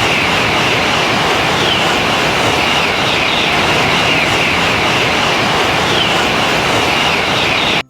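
Train passing the crossing: a loud, steady rush of rolling noise that starts abruptly and cuts off suddenly near the end.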